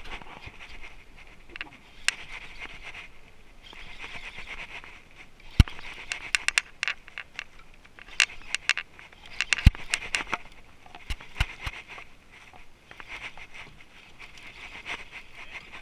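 Close handling noise on the camera: rubbing and rustling broken by many small clicks, with two sharp knocks about five and a half and ten seconds in.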